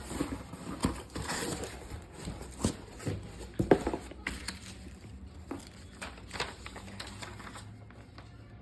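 Packaging of a whey protein tub being handled during unboxing: irregular taps, knocks and rustling, the sharpest knock a little under four seconds in.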